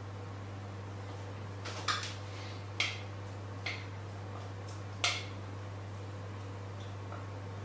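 Four light clinks of a spoon knocking against the jug's spout and the metal mould tray while batter is poured, over a steady low hum.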